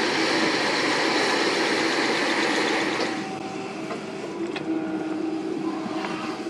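Komatsu PC78US mini excavator's diesel engine running steadily as it digs soil. The sound drops in level about three seconds in, leaving a steady engine hum with a few light clicks.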